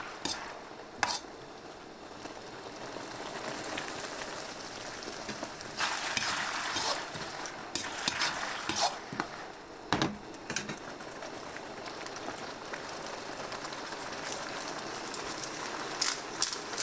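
Vegetables and sauce sizzling steadily in a pan over a low flame, with a cooking utensil now and then scraping and clicking against the pan.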